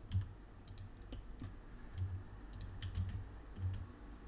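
Irregular light clicks of a computer mouse and keyboard as objects are moved and keyboard shortcuts are used in 3D software, with a few soft low thumps among them.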